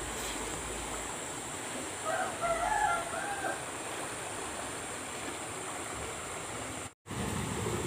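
A rooster crows once, for about a second and a half, a couple of seconds in, over the steady rush of flowing canal water. The sound drops out briefly near the end.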